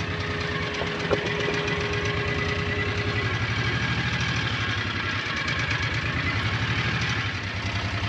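Engine of a small ride-on farm vehicle running slowly, a steady, even putter. A faint whine rides along with it and fades out about three seconds in.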